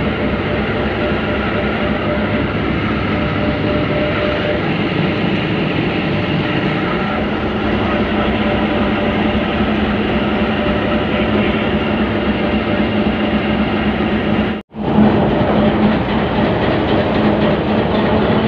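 HBU 20 diesel-electric locomotive's engine idling with a steady drone and hum while the train stands waiting, heard first inside the cab. A split-second dropout about fifteen seconds in, after which the engine is heard from the platform beside it.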